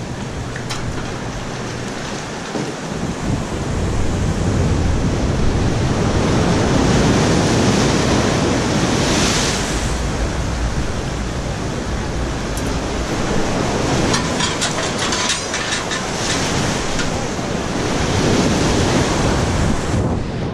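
Steady rush of wind buffeting the microphone over waves and surf, with a brief patch of light clicking about two-thirds of the way in.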